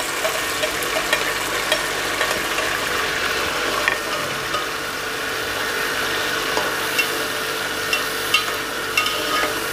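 Chopped onion and tomato sizzling steadily in hot ghee, with a spoon clicking against the pan now and then as it is stirred.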